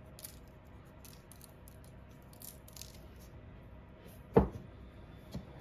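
Faint scattered ticks of granulated sugar being sprinkled by hand onto bread rolls on a parchment-lined baking tray, with one sharp knock about four and a half seconds in.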